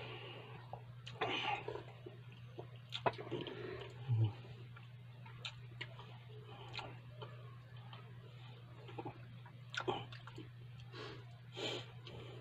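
Small scattered mouth clicks and lip smacks, with a few sips of hot tea from a glass mug, over a steady low hum.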